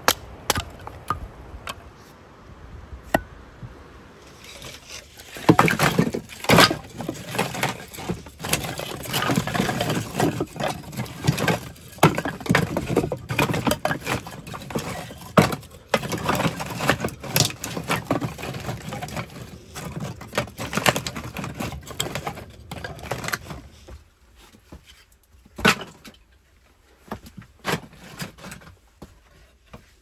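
A few sharp axe strikes splitting kindling on a wooden chopping block, then a long stretch of split firewood sticks clattering and knocking together as they are stacked by hand into a wooden storage box. Near the end there are only a few scattered wooden knocks.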